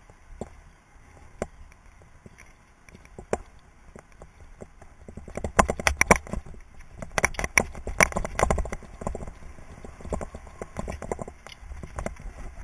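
Mountain bike rattling and knocking as it rides a rough dirt trail over roots and sticks: single sharp knocks at first, then a thick run of clattering about five seconds in that thins out after nine seconds, over a low rumble of tyres and wind.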